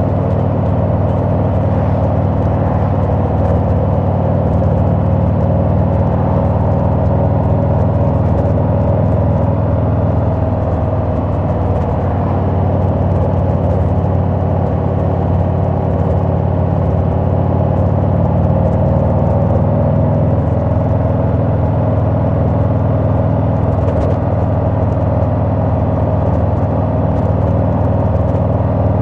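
Harley-Davidson Sport Glide's Milwaukee-Eight 107 V-twin running under way at a steady cruise, its engine note shifting slightly in pitch partway through, with road and wind noise.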